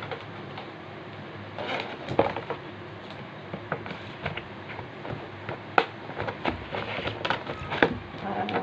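Clear plastic packaging rustling and crinkling as it is handled, with irregular sharp crackles.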